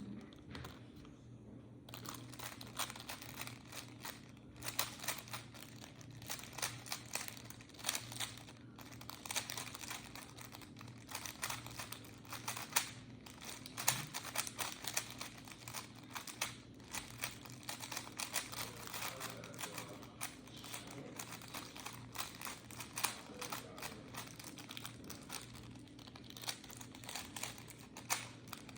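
3x3 Rubik's cube being turned one-handed in a timed speedsolve: quick, irregular clicking and clacking of the layers, starting about two seconds in and running almost without pause.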